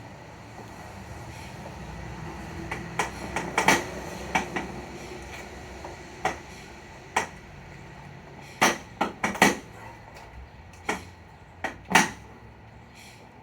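Irregular sharp plastic clicks and knocks, about fifteen of them, as a car's headlight housing is handled and worked loose from its mounts; the loudest come around four seconds in and near the end.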